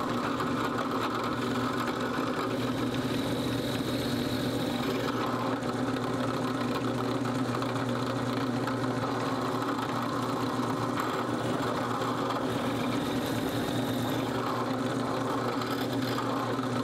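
Drill press motor running steadily as a 1/4-inch bit bores holes into redwood, then cuts off suddenly at the end.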